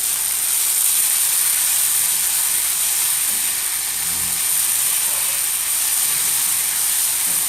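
Dried prawns and curry leaves sizzling in hot oil in a wok, a loud, steady hiss with no break.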